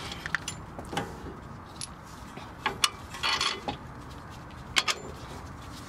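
Scattered sharp metallic clicks and clinks of bolts being handled and fitted into the strut-to-knuckle joint of a car's front suspension, with a short rustle in the middle. The loudest click is about three seconds in, and a double click comes near the end.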